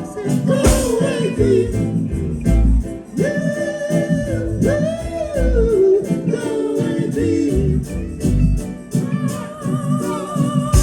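Live reggae band playing with a sung vocal melody of long held and gliding notes over a steady bass beat.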